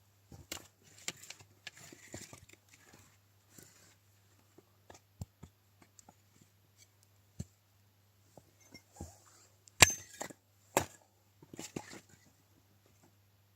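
Scattered knocks and clicks of firewood being handled and chopped, with two sharp, loud knocks about a second apart near ten seconds in.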